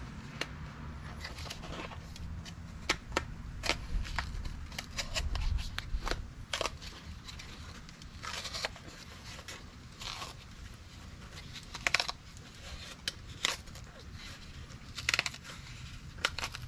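An old factory car-door speaker being broken out of its plastic trim ring with a hand tool: irregular sharp snaps and cracks, with short bursts of tearing and crunching of the cone and plastic.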